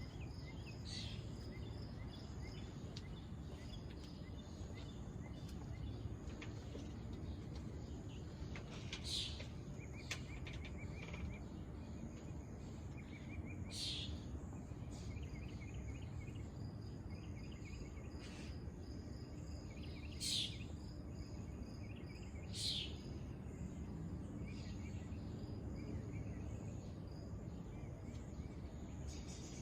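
Outdoor ambience: a steady low background noise with faint insect trilling, and short high bird chirps about five times.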